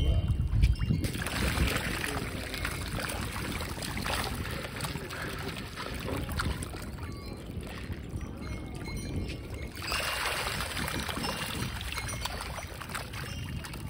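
A dense shoal of orange-tailed carp splashing and churning at the water surface as they feed, a continuous wet splashing that swells about a second in and again about ten seconds in.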